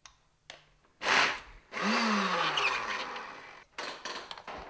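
Countertop blender running in two short pulses on a thick pâté mixture: a brief burst about a second in, then a longer run whose hum falls in pitch and fades. A few sharp clicks of the plastic jar follow near the end.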